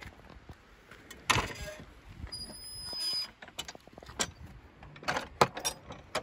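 Metal latch of a wooden field gate being worked and the gate swung open and shut: a sharp clack about a second in, a rising scrape with a thin high squeak around three seconds in, then a run of knocks and clacks as the gate bangs against its post and latches.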